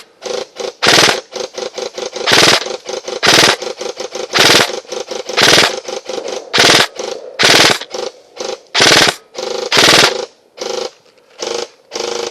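Airsoft gun firing repeatedly, with a loud sharp shot about once a second and quieter shots in between, over a faint steady whir.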